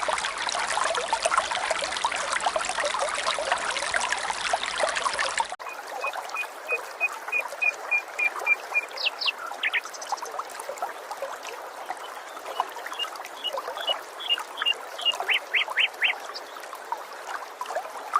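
Running water trickling and splashing, cutting off abruptly about five seconds in. Then a bird calls over a faint background hiss: a run of short, evenly repeated high notes, about three or four a second, broken by a few quick down-slurred notes.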